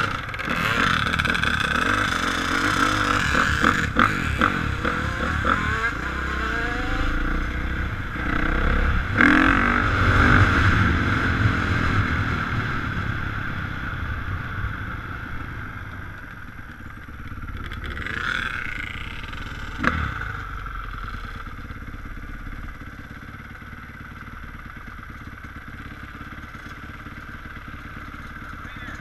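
Dirt bike engines revving and riding past. Loudest, with rising and falling revs, over the first dozen seconds, then fading off. Another bike swells past about eighteen seconds in, and there is a single sharp knock soon after.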